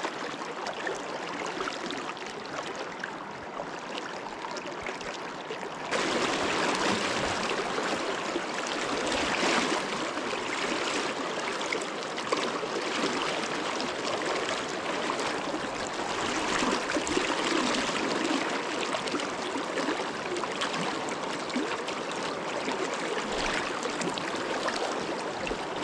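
Deschutes River water rushing past: a steady wash of running water that steps up abruptly in loudness about six seconds in.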